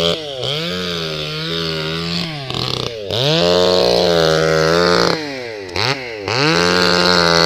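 Stihl 020 Super two-stroke chainsaw revving at high throttle, the throttle let off and opened again about four times, the engine note dropping briefly and climbing back each time.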